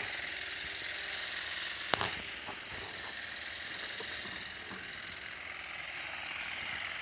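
Small engine of a motorised olive harvesting machine running steadily, with one sharp click about two seconds in.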